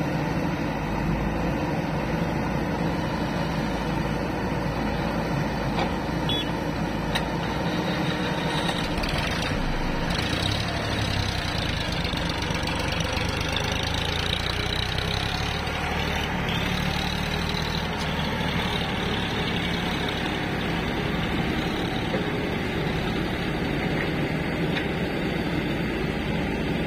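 Diesel engines running steadily: a Sonalika DI 740 III tractor's engine close by, with a JCB backhoe loader's diesel working behind it.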